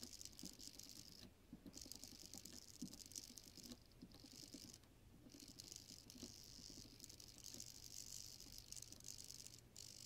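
Very faint, irregular small clicks and rattles from a rotary encoder knob being turned step by step and an SG90 micro servo nudging along with it, over a low steady hum.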